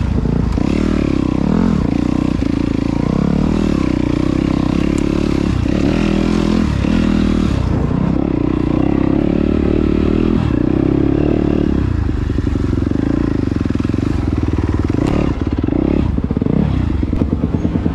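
2017 Yamaha YZ250FX dirt bike's single-cylinder four-stroke engine revving up and down while riding, its pitch rising and falling every second or two, then running steadier for a few seconds about two-thirds of the way through.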